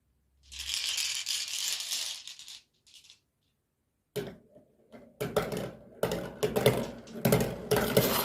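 Marbles running down a handmade rain-gutter and wooden marble-run track. First comes a rushing hiss of rolling, then a pause, then a dense stream of sharp clicks and clacks as the marbles knock against the track and each other.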